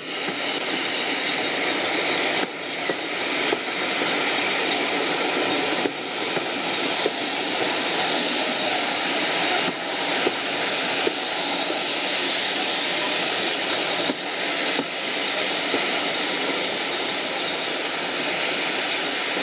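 Steam-hauled passenger train on the move, heard from an open carriage window: a steady rushing roar of wind and running noise, with the two steam locomotives working ahead and small irregular jolts in loudness.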